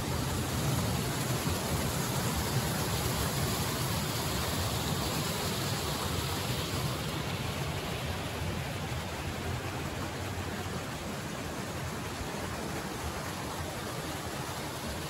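Rushing mountain stream: a steady wash of water noise that eases slightly toward the end.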